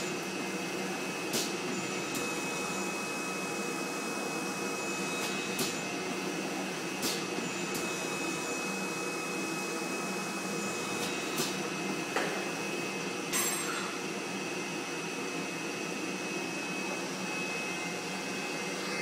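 Flatbed screen printing machine running: a steady whirring hum with a constant high whine, broken by sharp clicks several times as its pneumatic print head and squeegee carriage cycle.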